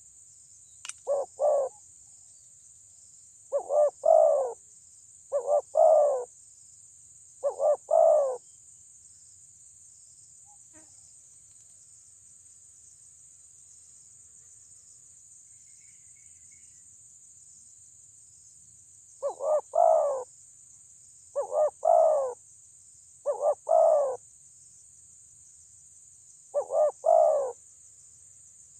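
Spotted dove cooing: about eight short phrases of two or three notes each, in two bouts of four separated by a pause of about ten seconds. A steady high insect hiss runs underneath.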